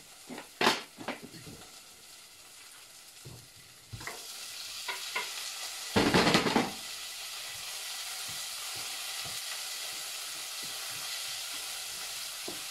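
Marinated pork pieces frying in hot oil in a pot: a few clinks of metal tongs at first, then sizzling that starts about four seconds in, flares into a loud burst of sizzling as the meat goes in around six seconds, and settles to a steady sizzle.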